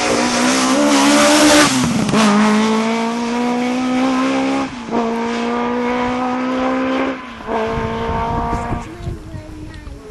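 Rally car engine accelerating hard, pitch climbing steadily in each gear, with three upshifts in a row. The engine fades away near the end.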